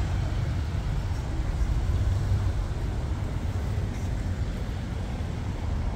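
Steady low rumble with an even, fainter hiss above it, unchanging throughout.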